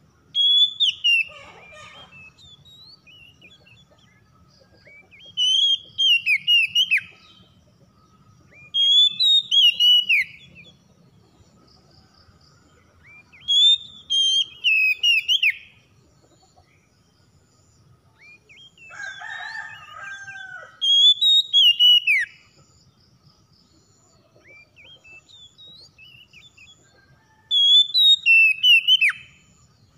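Caged Oriental magpie-robin singing: six short phrases of clear whistled notes that sweep up and down, each a second or two long, a few seconds apart.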